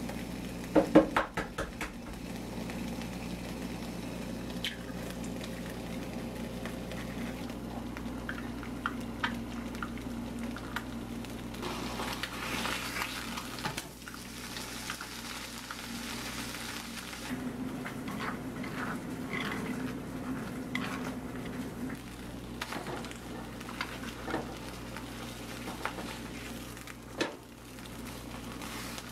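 A slice of ham and a fried egg sizzling in a nonstick frying pan, with a quick run of loud clicks and knocks about a second in. The sizzle grows louder for several seconds near the middle, as the egg goes into the hot pan, and a few light taps follow.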